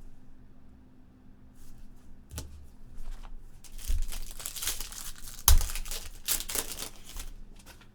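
Plastic trading-card pack wrapper being crinkled and torn open, with a couple of sharp clicks among the crackling, most of it in the second half.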